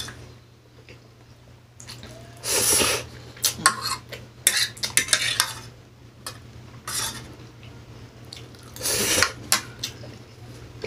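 A metal fork scraping and clicking against a tray while the last loose noodles are gathered up, in irregular short strokes with a couple of louder scrapes.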